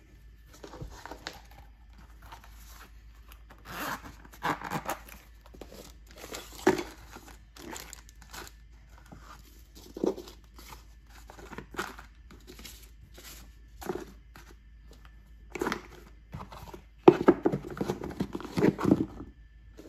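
Hands packing a cardboard box: paper and a plastic bag rustling and crinkling, with cardboard scrapes and sharp knocks, in irregular bursts. It is busiest and loudest near the end, as the lid is closed and the box is handled.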